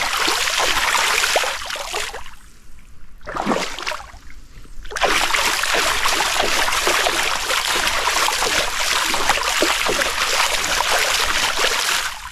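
Rushing water of a waterfall, a loud steady hiss that cuts out briefly twice in the first five seconds and then runs on evenly.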